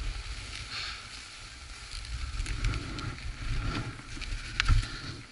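Skis hissing and scraping over cut-up snow, swelling with each turn, over a steady rumble of wind buffeting the microphone. A sharp click comes about four and a half seconds in.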